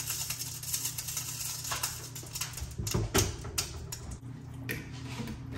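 Cookware being handled at a stove: scattered light knocks and clinks of a pot and utensils, about one a second, over a steady low hum.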